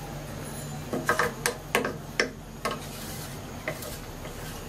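Wooden spatula knocking and scraping against the side of a metal cooking pot while stirring rice and dal into water, with several sharp knocks between about one and three seconds in. A steady low hum runs underneath.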